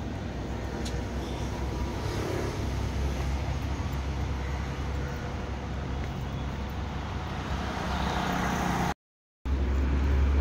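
Road traffic from cars and auto-rickshaws passing on a city street, a steady low rumble of engines and tyres. The sound cuts out briefly near the end.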